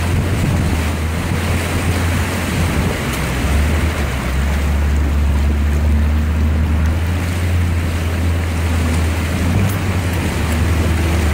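Jeep Cherokee XJ engine running with a steady low drone as the Jeep wades through deep water, with a continuous rush and slosh of water against the body, heard from inside the cab.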